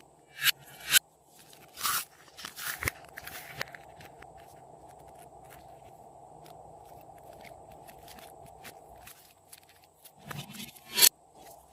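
Glossy slime being worked and mixed by hand, giving sharp crackling pops and crunches. These cluster in the first three to four seconds and come again near the end, with a quieter stretch between.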